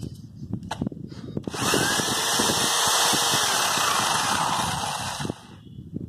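Black & Decker electric drill boring into a plastered concrete pillar. A few handling clicks come first, then about four seconds of loud, steady drilling that stops shortly before the end; the bit goes in easily.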